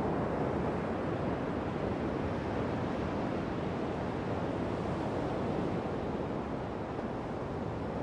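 Steady, unbroken wash of ocean surf.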